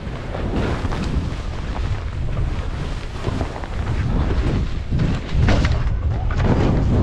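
Wind buffeting the microphone of a helmet action camera during a fast ski run, with Faction skis scraping and chattering over chopped, crusty snow. The rumble is heavy and continuous and gets louder about five and a half seconds in.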